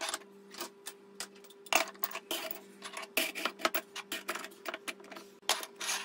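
Kitchenware being handled and set into a cabinet: an irregular run of short clinks and knocks of glass and crockery, with a faint steady hum underneath.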